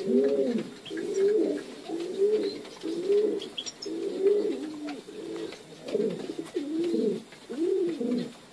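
Domestic fancy pigeons cooing, a steady run of low coos at roughly one a second.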